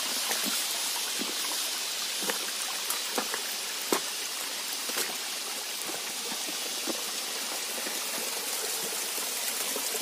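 Mountain stream running steadily over rocks, with scattered footfalls and knocks on stones and sticks as people climb.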